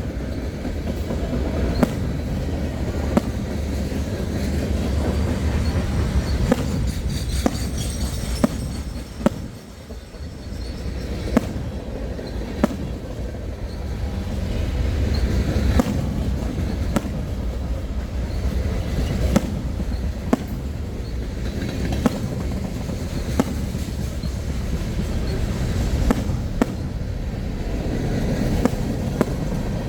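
Fireworks going off, with sharp bangs at irregular intervals over a steady low rumble that dips briefly about a third of the way in.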